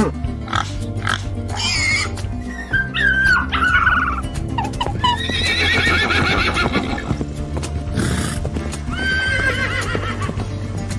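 Horses neighing, two long whinnies with a quivering pitch, the first about five seconds in and the second about nine seconds in, over background music with a steady low drone.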